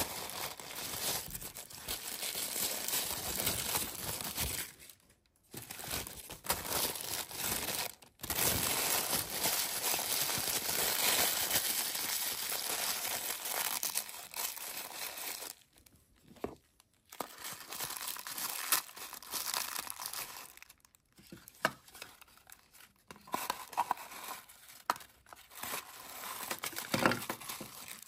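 Tissue paper being crumpled and crinkled by hand, in long dense stretches broken by short pauses. In the second half the crinkling turns quieter and more scattered, with a few sharper crackles near the end.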